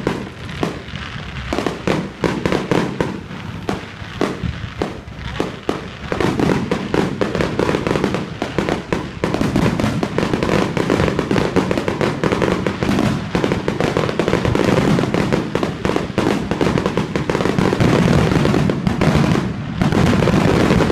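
Fireworks display: a dense, continuous barrage of bangs and crackles from aerial shells, getting louder and denser from about six seconds in.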